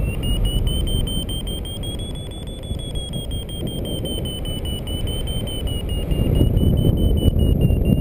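Paragliding variometer sounding its climb tone, a steady high-pitched tone whose pitch rises a little and then eases down, signalling a strong climb in a thermal. Loud wind rumble from the airflow over the microphone runs beneath it.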